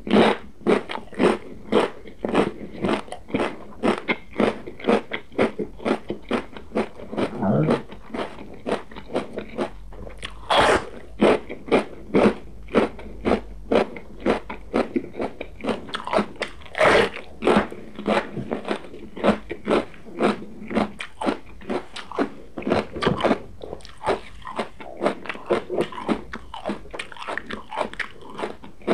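Close-miked biting and chewing of raw green pepper: a dense run of crisp crunches, with a few louder bites about ten, seventeen and twenty-three seconds in.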